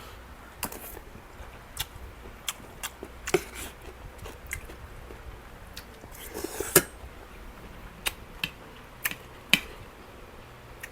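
A person chewing stir-fried food close to the microphone, with irregular wet clicks and smacks of the mouth about once a second. The loudest smack comes a little past the middle.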